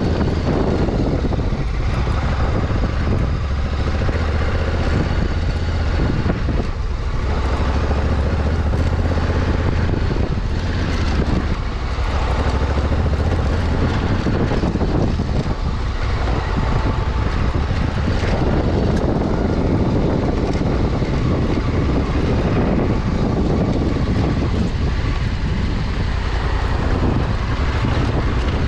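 Honda Africa Twin 1100's parallel-twin engine running at a steady riding pace, its low hum under a steady rush of wind on the microphone.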